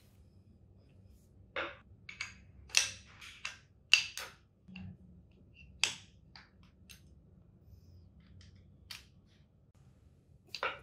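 Sharp metal clicks and clanks as a 1972 Vespa Super's front brake backing plate, with its shoes and springs, is handled and fitted onto the fork. There is a quick run of about eight in the first six seconds, then a few scattered ones, with a louder one near the end.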